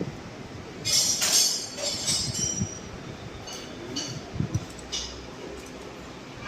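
Metallic clinking and jingling, loudest from about one to two and a half seconds in, then scattered lighter clinks.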